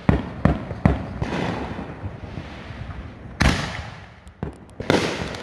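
Consumer aerial fireworks going off: three sharp bangs in the first second, then crackling, then two bigger booms about three and a half and five seconds in.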